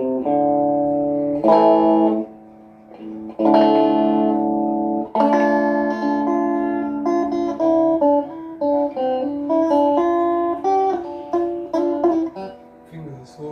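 Steel-string acoustic guitar being played: a few strummed chords left to ring, then a quicker run of picked notes and chords that fades near the end.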